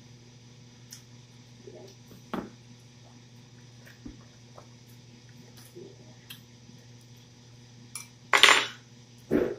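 Tableware handled during a meal: scattered light clinks and taps of plates and utensils, with two louder clattering noises near the end.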